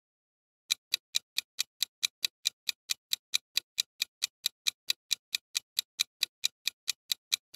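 Clock-ticking sound effect for a quiz countdown timer: sharp, even ticks about four to five a second, starting just under a second in.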